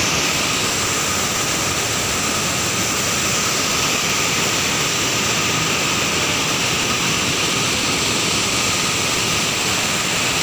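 Lake water spilling over a low stone weir and rushing down the spillway in a steady, unbroken rush.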